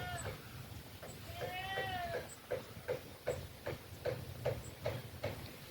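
An animal calling: two drawn-out cries that rise and fall in pitch in the first two seconds, then a run of short, evenly spaced calls, about two and a half a second, that stops shortly before the end.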